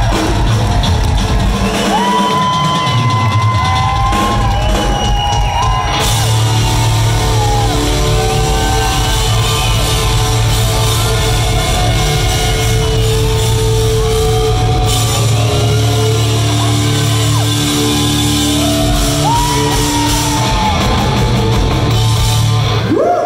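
Live hard rock band playing loudly, with electric guitars, bass and drums and a singer's shouted vocals, in the echo of a large hall.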